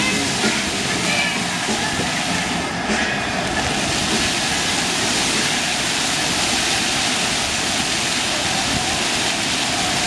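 Dozens of ground-level fountain jets in the ring-shaped basins of the Fountain of Rings spraying and splashing down onto the pavement, a steady rushing hiss of falling water.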